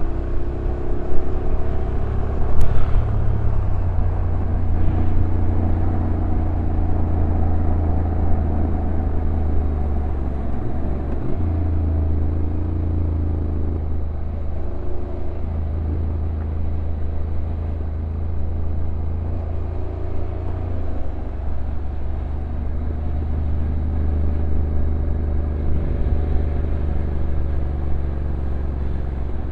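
Honda NC750X's parallel-twin engine running steadily at low revs on a downhill ride, over a haze of road and wind noise. The engine note steps up or down a few times as the revs change.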